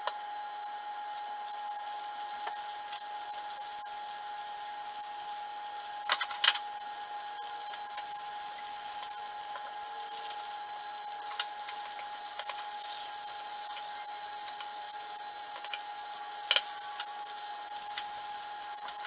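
Ground beef simmering in broth and butter and bacon frying in skillets, a steady sizzling hiss with a thin steady whine underneath. A few sharp knocks sound about six seconds in and again near the end.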